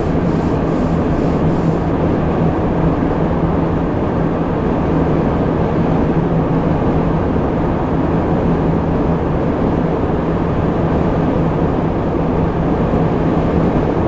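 Steady road and engine noise inside a moving car's cabin while cruising, with a constant low hum beneath it.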